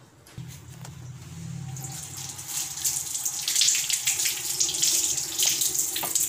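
Kitchen tap running, its stream splashing onto a cloth held under it and into the sink; the water gets louder about two seconds in.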